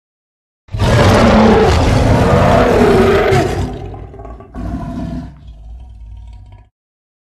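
Monster roar sound effect mixed from lion, tiger and other animal roars. One long, loud roar starts just under a second in and fades, a shorter, weaker roar follows, and the sound cuts off abruptly.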